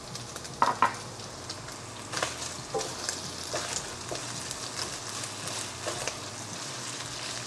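Chicken pieces sizzling in a nonstick wok as they are stir-fried with Thai basil, a wooden spatula knocking and scraping against the pan. Two sharp knocks about a second in are the loudest sounds.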